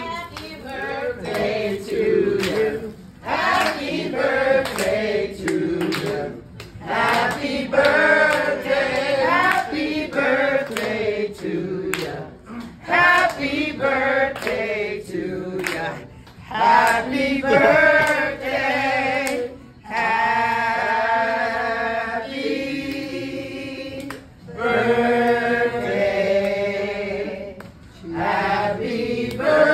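A woman singing unaccompanied, in phrases broken by short pauses every few seconds, with long held notes in the second half.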